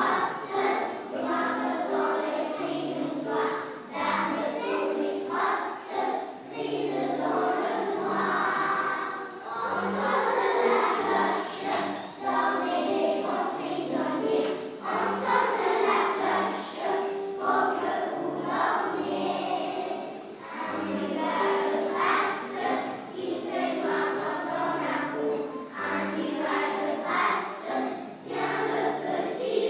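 A choir of young children singing together over instrumental accompaniment.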